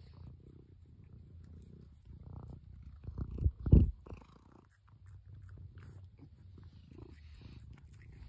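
Domestic cat purring close to the microphone, a steady low rumble. About three seconds in, loud bumps and rubbing as the cat presses its face against the microphone.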